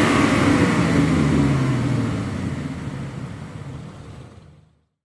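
Car engine revving, its pitch falling early on and the sound fading steadily until it stops about four and a half seconds in.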